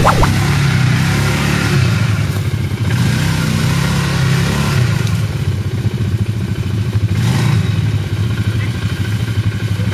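ATV engine running steadily, a continuous low drone that wavers slightly in pitch.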